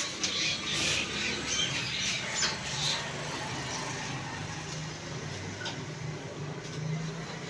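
A steady low machine hum from a belt-driven flour mill's drive. Several short, high squeaks come in the first three seconds.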